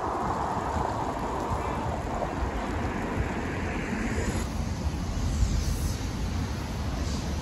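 Road traffic at a busy junction, with tyre noise from a passing car fading over the first few seconds, and wind buffeting the microphone throughout.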